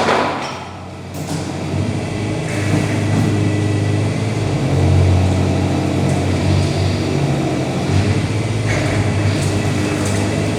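Heavy-equipment diesel engine running steadily with a low hum, building up about two seconds in and again around the middle. A heavy thud comes right at the start.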